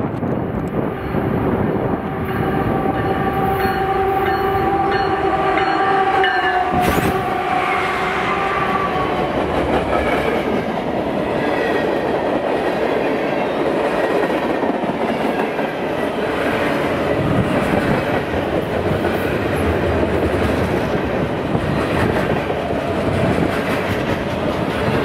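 Train passing: a locomotive horn sounds a steady chord for about five seconds, two seconds in, then the train's wheels rumble and clatter along the rails.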